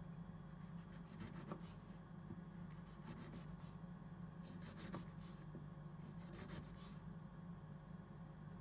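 Kitchen knife cutting through a tomato onto a wooden cutting board: a few faint, soft scraping strokes about every second and a half, over a steady low hum.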